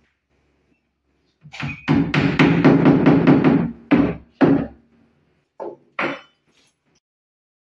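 Claw hammer striking a laminated plywood wall panel, with a low hollow ring under the blows. One blow comes about a second and a half in, then a quick run of about six blows a second, then a few separate blows, the last two lighter.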